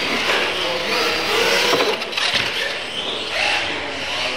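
Radio-controlled monster trucks launching off the line and racing across a concrete floor: a sudden burst of motor whine and tyre noise, with short rising whines as they accelerate.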